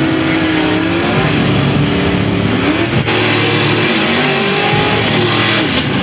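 Ford V8 drag cars doing burnouts, engines revving hard with the hiss of spinning tyres. The sound breaks off abruptly about halfway and a second car's burnout follows.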